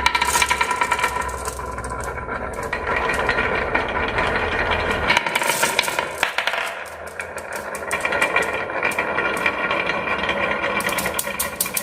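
Marbles rolling and clattering along a marble run track: a continuous rattle of many small clicks with a ringing rolling tone, easing briefly about six seconds in.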